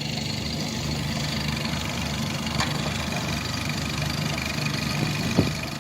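Twin 60 hp Mercury four-stroke outboard motors idling with a steady low hum. A sharp click comes about halfway through, and a louder short knock comes near the end.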